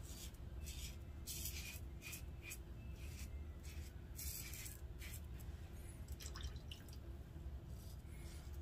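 Double-edge safety razor with a Gillette Rubie blade cutting through lathered two-day stubble on the cheek. Short, faint, scratchy strokes come at uneven intervals, about one every second.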